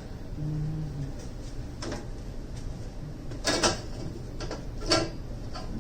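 A brief low whir of a small motor about half a second in, then a few separate knocks and clunks of hard objects being handled. The loudest is a double clunk a little past halfway.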